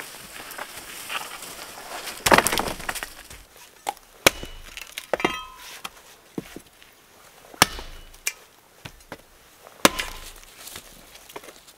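Footsteps and a branch rustling through dry leaf litter, then a loud crash as the branch is thrown down about two seconds in. After that an axe chops into the branch laid over a stump: sharp single strikes a couple of seconds apart.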